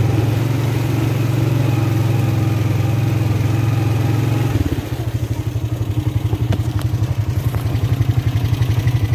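ATV engine running steadily under throttle as the quad wades through deep water, then about four and a half seconds in it drops to a lower, evenly pulsing beat.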